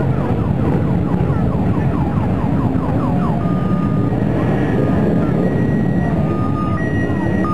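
Many motorcycle engines running together as a column of bikes rides past. Over them a siren wails in quick falling sweeps, then switches to an alternating high-low two-tone about halfway through.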